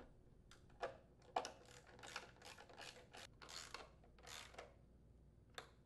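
Faint ratcheting of a socket wrench tightening the fuel pump's mounting bolts: a string of short rasping strokes, then a single click near the end.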